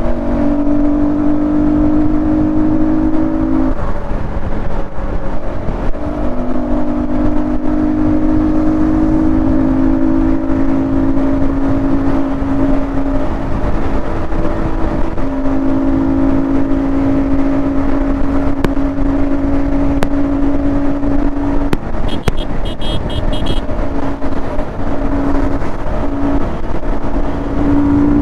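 Yamaha 155 cc single-cylinder motorcycle engine with an aftermarket Akrapovic exhaust, running at a steady cruise under the rider, its note dropping away briefly a few times as the throttle eases or a gear changes. Heavy wind rush on the riding microphone.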